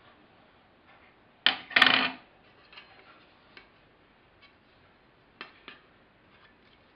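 Handling clatter of a studio-flash barn door and honeycomb grid: a sharp clack and a short rattle about a second and a half in, then a few light clicks as the barn door's flaps are swung.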